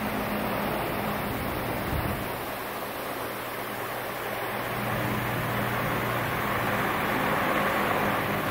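Wall-mounted outdoor mist fans running: a steady rush of fan air mixed with the hiss of high-pressure mist, over a low electric hum. It gets a little louder about halfway through.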